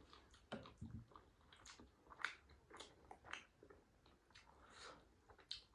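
Faint chewing of momo dumplings: irregular wet mouth clicks and smacks.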